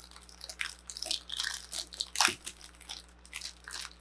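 Thin clear plastic bag crinkling and crackling in irregular bursts as hands pull and tear at it, trying to open the stubborn bag, with one sharp knock about two seconds in.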